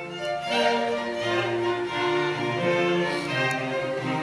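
String quartet playing a classical piece: bowed violins and cello holding sustained notes that change every half second or so.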